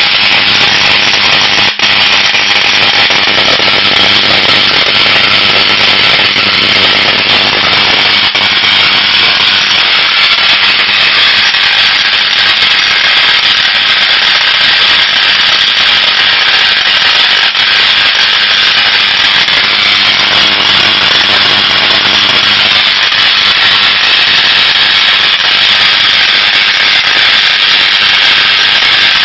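Tesla coil firing: sparks streaming off its spherical top load make a loud, steady buzzing crackle over a steady low hum. It cuts out for an instant about two seconds in, and near the end it is arcing to a metal rod held near the terminal.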